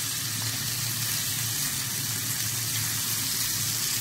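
Prawns shallow-frying in hot coconut oil, sizzling steadily.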